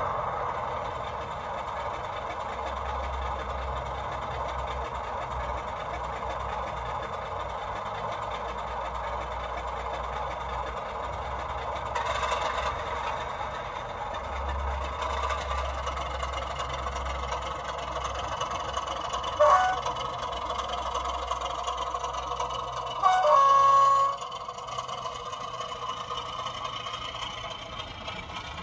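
The sound decoder in an OO gauge model Class 33 diesel plays a steady diesel engine idle through the loco's small speaker. About two-thirds in the horn gives a short toot, then a louder blast of about a second a few seconds later, as the loco moves off with its train.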